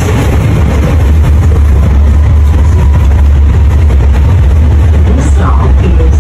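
Sydney Metro train running, heard inside the carriage as a loud, steady low rumble with an even rushing noise above it.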